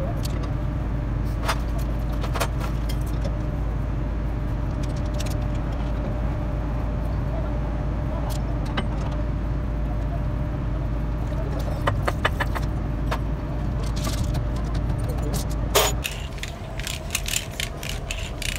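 Steel bearing parts being scrubbed with steel wool in a basin of dirty cleaning liquid: wet scrubbing with scattered small metal clinks, over a steady motor-like drone that drops away about three seconds before the end.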